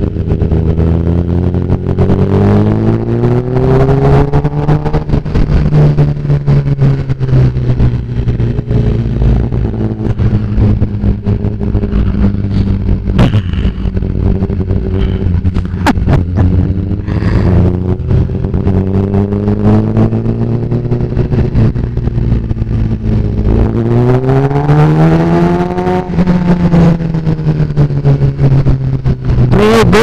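Sport bike engine running loud through an Austin Racing aftermarket exhaust under way, with wind rushing over the microphone. The engine note climbs in the first few seconds, holds fairly steady, then rises and falls again about 24 seconds in. It ends with a quick run of sharp pops.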